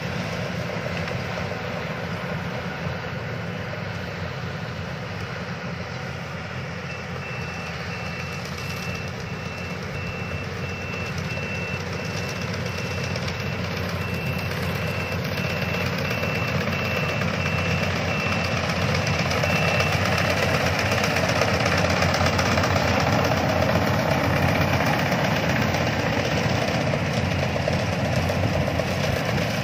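Yanmar combine harvester running steadily as it harvests rice, growing louder as it comes closer during the second half. A faint high beep repeats about once a second through the middle.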